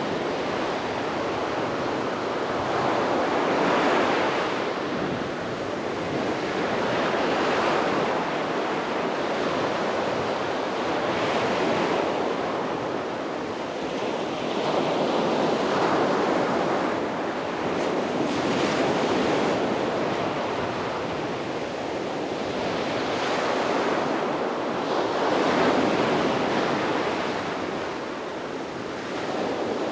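Sea waves breaking and washing up on a beach, surging and receding in swells every three to four seconds. Some wind noise on the microphone.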